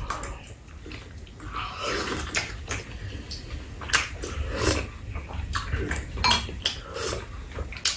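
Eating sounds: noodles slurped and chewed, with metal spoons and chopsticks clicking and clinking against bowls many times.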